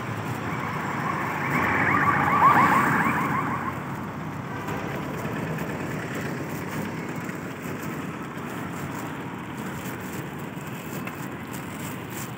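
Street traffic noise, with a wavering high tone for about two seconds near the start.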